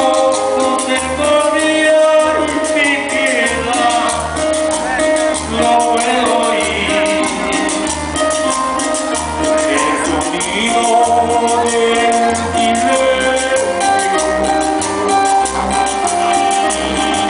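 Colombian cumbia music: a melody of held notes over a steady pulsing bass beat, with fast percussion throughout.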